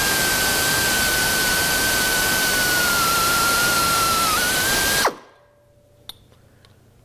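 Pneumatic drill running at speed, a steady high whine over air hiss, as it drills a rivet hole through a thick metal strip guided by a nutplate drill template. The whine sags a little as the bit cuts through, then the drill is let off and stops about five seconds in. A couple of faint clicks follow.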